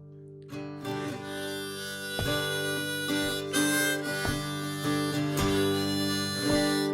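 Acoustic guitar strumming under a harmonica playing sustained melody notes: the instrumental intro of an alt-country song.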